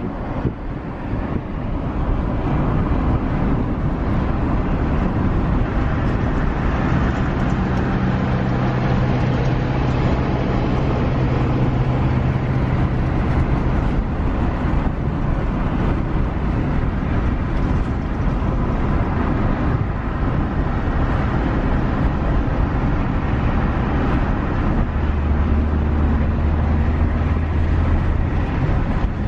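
Steady road noise and engine hum of a car driving in highway traffic, heard from inside the moving vehicle. A low hum stands out from about a quarter to halfway through, and a deeper drone comes in near the end.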